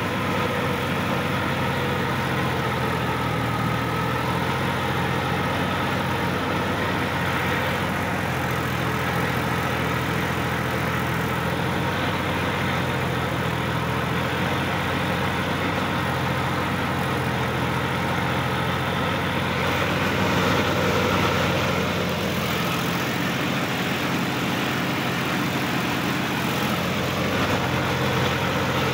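Sonalika DI-50 RX tractor's diesel engine running steadily, heard from the driver's seat as the tractor moves through a flooded paddy field. The engine swells slightly about two-thirds of the way through.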